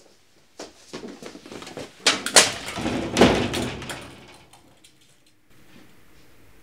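A run of knocks and clattering impacts, building to a loud, busy clatter from about two to four seconds in, then dying away.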